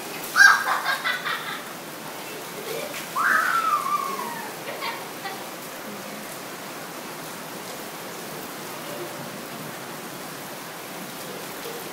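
Steady rain falling on a brick patio, an even hiss. Over it, a short high cry about half a second in and a longer high cry falling in pitch around three seconds in.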